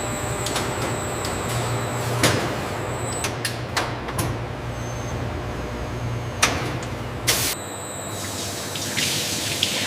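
Steady low machine hum with several sharp clanks. The hum cuts off about seven and a half seconds in and a hiss like spraying water takes over.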